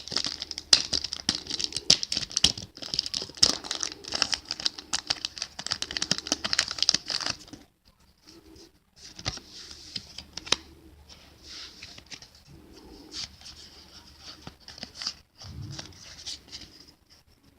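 Foil wrapper of a Pokémon trading card booster pack crinkling and tearing as it is opened, dense and continuous for about seven seconds. After that come quieter, scattered rustles and taps.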